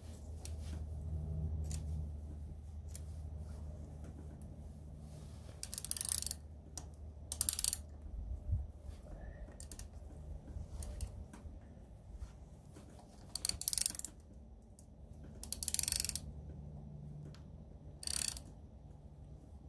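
Ratchet wrench clicking in five short runs as a bolt is turned into an unthreaded engine-mounting hole, cutting its own thread. A steady low hum runs underneath.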